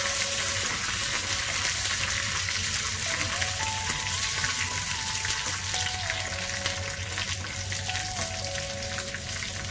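Curry leaves and green chillies sizzling and crackling in hot coconut oil in a small pan as they are stirred.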